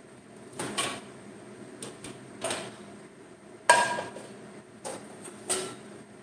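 Metal pots and kitchen utensils being handled, knocking and clanking against each other in a string of separate sharp clanks with a brief metallic ring, the loudest a little past the middle.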